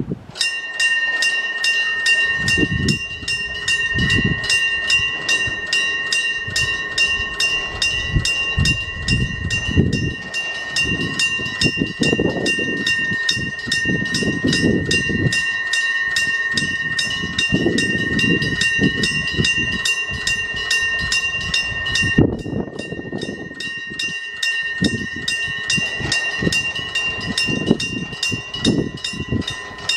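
Japanese railway level crossing alarm ringing with a fast, evenly repeating electronic ding, while an electric train on the Hokuriku Railroad Ishikawa Line passes over the crossing with rumbling and wheel clatter. The alarm's pattern briefly changes a little past two-thirds of the way through.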